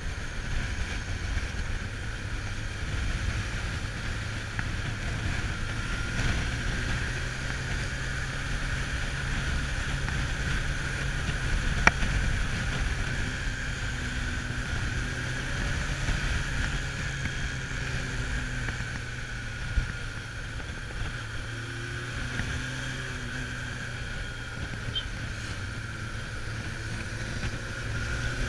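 Kawasaki Zephyr 750's air-cooled inline-four engine running steadily, heard from the rider's seat with wind rushing over the microphone. A single sharp click about twelve seconds in.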